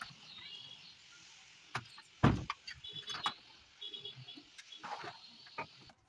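Scattered clicks and knocks of door lock hardware and tools being handled during installation, the loudest a single deep knock about two seconds in. Short high chirps sound twice in the background, about three and four seconds in.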